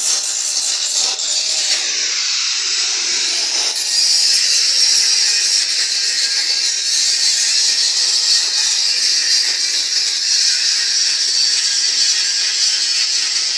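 A loud, steady hiss that grows a little stronger about four seconds in.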